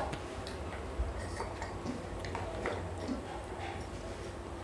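Light, scattered clicks and taps of a metal fork against a plate while eating, over a low steady hum.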